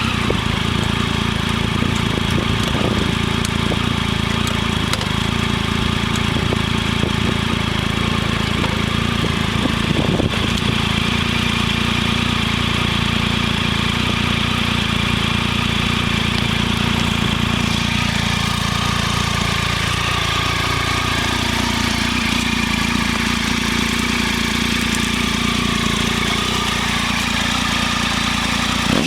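2008 Triumph Tiger 1050's three-cylinder engine running steadily through a TOR aftermarket muffler, its engine speed easing down a little about two-thirds of the way through.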